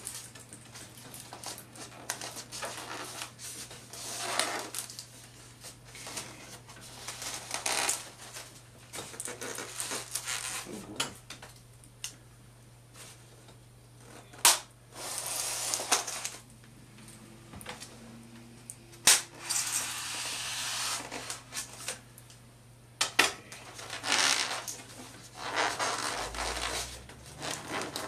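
Scissors cutting through plastic wrap on a styrofoam box: irregular crinkling and rustling of the plastic, hands rubbing and shifting the foam box, and a few sharp clicks.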